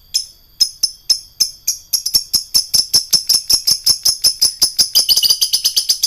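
Lovebird ngekek: a run of sharp, high chirps, a few a second at first, then speeding up about two seconds in into a long rapid chatter. The chatter quickens further near the end and stops abruptly.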